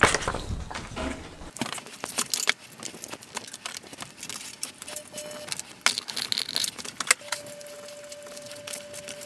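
Small metal parts clinking and knocking as screws and aluminium extrusion rails are handled and fitted together, with many short irregular clicks. A faint steady tone comes in about seven seconds in.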